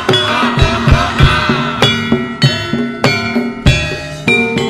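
Javanese jaran kepang gamelan music: sharp, frequent hand-drum (kendang) strokes over steadily ringing metallophone notes, with a gliding melodic line above.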